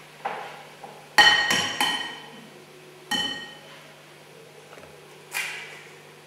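Eggs knocked against the rim of a china plate to crack them: a string of sharp clinks, the plate ringing briefly after each, the loudest about a second in.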